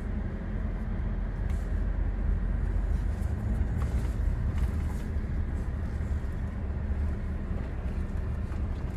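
Jeep Meridian SUV driving slowly over a dirt course, heard from inside the cabin: a steady low rumble of engine and tyre noise.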